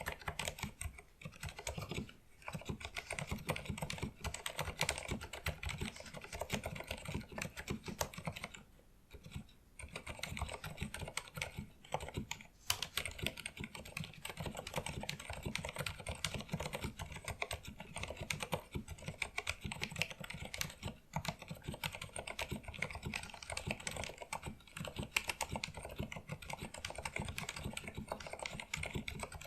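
Continuous fast typing on a Filco Majestouch 2 mechanical keyboard with Cherry MX Pink (silent red) linear switches: a dense run of keystrokes, broken by brief pauses about two, nine and twenty-one seconds in.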